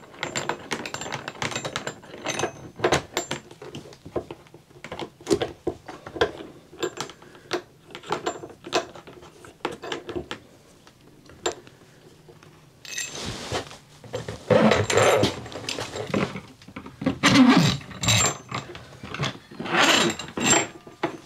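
Irregular clicks, taps and light rattles of metal mounting bolts against the plastic ceiling assembly of an RV rooftop air conditioner as the bolts are fed up through the ceiling and turned while feeling for the holes in the rooftop unit. In the last third, louder scraping and rustling comes in among the knocks.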